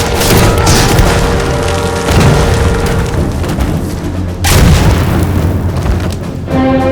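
Explosions booming in an air raid over a dramatic music score, with a fresh heavy blast about four and a half seconds in and another near the end.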